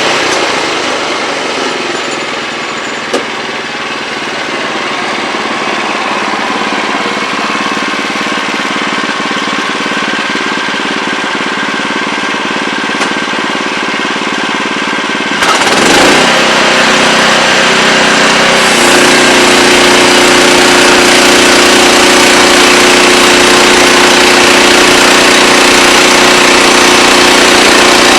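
Wood-Mizer LX25 portable band sawmill running, its engine and band blade making a steady mechanical drone. A little over halfway through the sound shifts, then grows louder.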